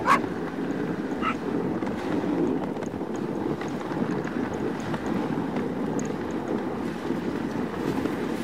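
Dog sled pulled by huskies on the move: a steady rushing noise of the sled running over snow, with wind on the microphone.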